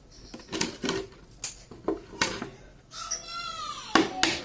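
Hammer knocking on wood in a few irregular blows, then settling into steady hammering at about three blows a second near the end. About three seconds in, an animal call rises and falls over about a second.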